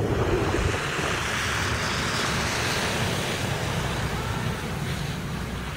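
Contra-rotating propellers of a radio-controlled model plane in flight, a broad rushing sound that swells about two seconds in and then slowly fades. Wind rumbles on the microphone underneath.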